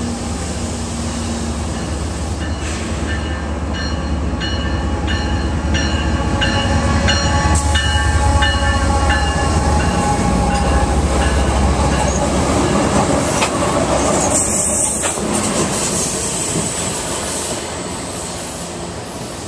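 CSX diesel locomotives running light (no cars) pass close by: the engine rumble builds as they approach, is loudest as they go by, then fades. A repeating high tone sounds about twice a second as they near, and there are a few sharp clicks of wheels over rail joints.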